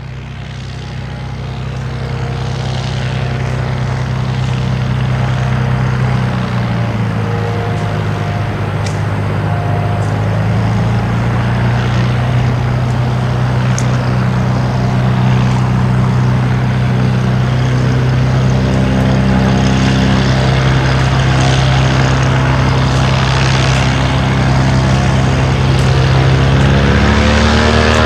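Piston engine and propeller of a light aircraft running steadily, growing louder over the first several seconds, with the pitch rising near the end.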